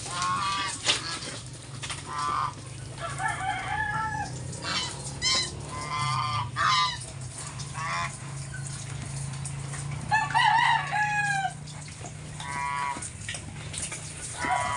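Chickens clucking on and off, with a rooster crowing one long crow about ten seconds in, over a steady low hum.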